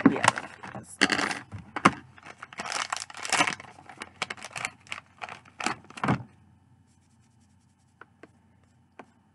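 A makeup-wipe packet and paper being crinkled and torn open, a quick run of rustling and tearing for about six seconds, then a few faint ticks.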